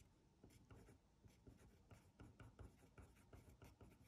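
Faint scratching of a pen on paper as block letters are written. It comes as a quick, uneven run of short strokes.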